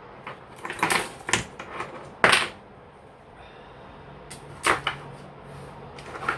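Small pieces of costume jewellery clicking and clattering as they are handled and sorted, in a handful of separate knocks with the loudest about two seconds in.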